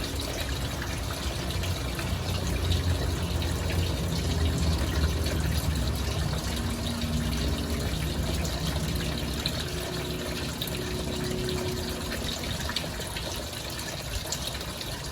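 Diesel exhaust fluid gushing and splashing steadily out of the bottom of the DEF tank as the old pump is worked loose.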